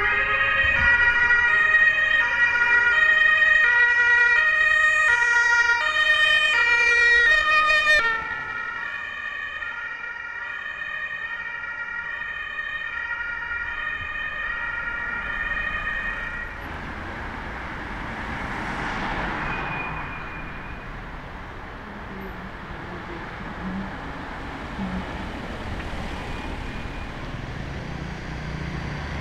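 Emergency vehicle's German two-tone siren, switching back and forth between two notes. It is loud for the first third, then drops suddenly and carries on fainter. In the second half it gives way to street traffic noise with passing cars.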